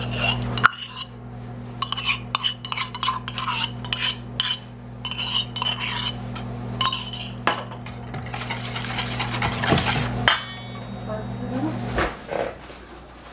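A metal spoon scraping and tapping yogurt out of a plastic cup into a stainless steel mixing bowl, with many quick clinks of metal on metal. A steady low hum underneath stops about ten seconds in, and a brief ringing tone follows.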